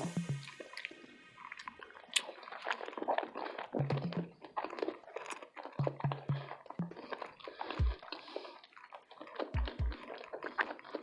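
Close-miked chewing of a burrito: wet, sticky mouth sounds with dense, irregular clicks and smacks, and a few short low thumps scattered through.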